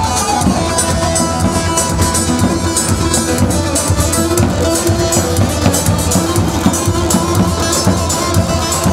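Live Kurdish wedding dance music: electronic keyboard and plucked bağlama melody over a steady drum beat.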